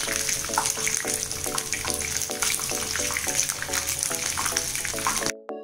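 Battered chicken lollipops deep-frying in hot oil, a steady crackling sizzle, under background music. The sizzle cuts off suddenly near the end, leaving only the music.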